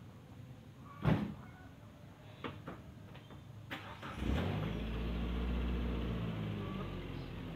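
A loud thump about a second in, then a small pickup truck's engine starts about four seconds in and settles into a steady idle.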